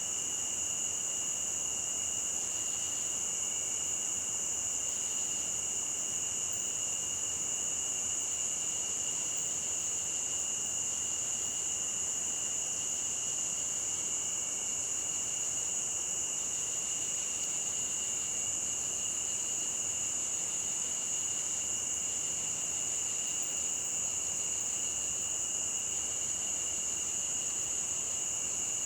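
Crickets trilling steadily, one high-pitched chorus and a lower one, over the faint even rush of a stream.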